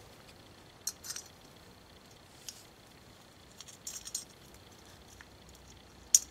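Light, sharp metallic clicks and taps as a Tecumseh carburetor's float and float needle are fitted and handled. They come irregularly, with a small cluster in the middle and the sharpest click near the end.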